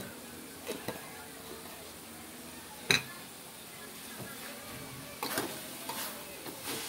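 Metal spatula on an aluminium wok: one sharp clack about three seconds in, then a run of scraping and clatter near the end as it stirs pounded cassava leaves.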